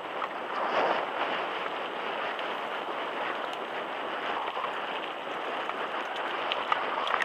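Wind buffeting the action camera's microphone, mixed with mountain-bike tyres running over a dirt track, as a steady rushing noise. A few short clicks and rattles come near the end.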